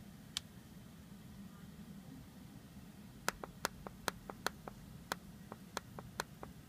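Sharp ticking clicks from an iPhone 6's side volume-button area: one click early on, then a quick uneven run of about three to four clicks a second from about three seconds in. It is an unexplained fault clicking in a week-old phone.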